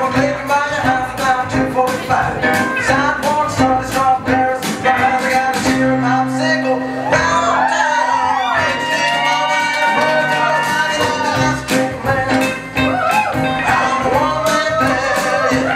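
A song with singing over a steady beat, played for a stage routine. About six seconds in the beat stops for a couple of seconds under a held low note and sliding vocal lines, then comes back.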